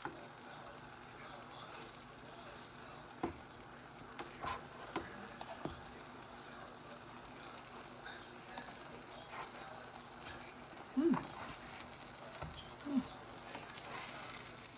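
Pancakes frying in a little oil in a hot pan, a faint steady sizzle with a few light clicks.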